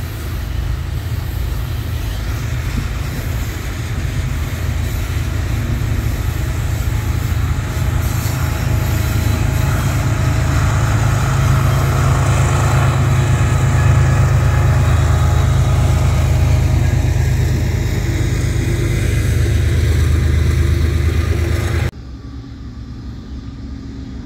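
Freight train of empty hopper cars rolling by, steel wheels clattering and rumbling on the rails. A BNSF GE diesel locomotive adds a loud engine rumble as it passes in the middle. About 22 seconds in, the sound drops abruptly to a much quieter, distant rumble.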